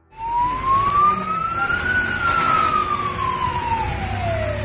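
Emergency vehicle siren in a slow wail, rising for about two seconds and then falling again, over the rumble of road traffic.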